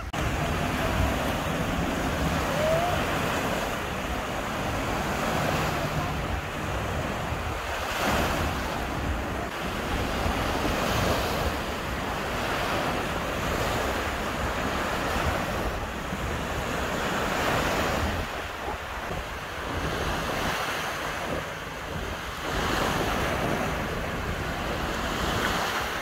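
Baltic Sea surf: small waves breaking and washing up a sandy shore, with wind buffeting the microphone.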